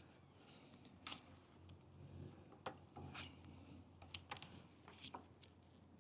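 Faint, irregular light clicks and taps of small tools and metal parts being handled while working on a bicycle. A short metallic clatter with a brief ring, a little past four seconds in, is the loudest.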